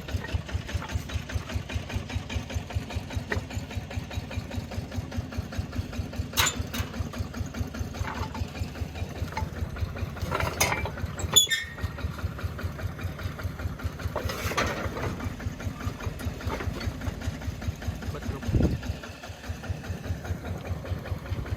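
Engine running steadily with an even, rapid pulse, with a few short clacks over it.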